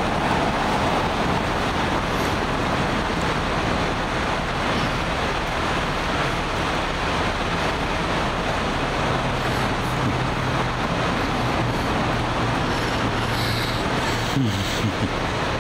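Steady road traffic and engine noise, with a low engine hum standing out from about nine seconds in and a few brief knocks near the end.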